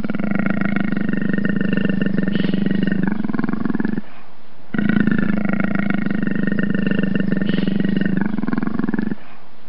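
A long, rough animal call lasting about four seconds, then a short gap and the same call played again identically.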